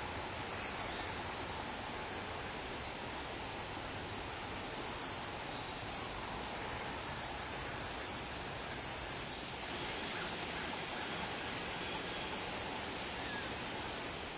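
Insect chorus in the garden: a loud, steady, high-pitched trill, with a second insect's fainter chirps repeating about once a second until about nine seconds in.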